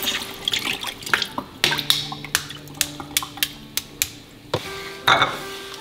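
Hard-boiled eggs clicking against each other and against a metal pan as they are rinsed in water in a sink: a string of sharp clicks, with water splashing.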